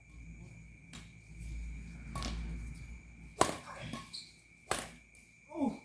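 Badminton rackets striking a shuttlecock during a rally: a sharp hit about a second in, then two more about a second and a half apart later on.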